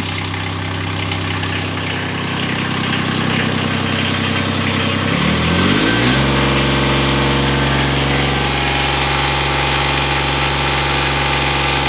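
Toro Greensmaster 3250-D's diesel engine, exhausting through its old, nearly 5000-hour muffler, idling steadily. About five seconds in it is throttled up, the pitch rising to a higher steady speed, typical of a move from idle to full throttle.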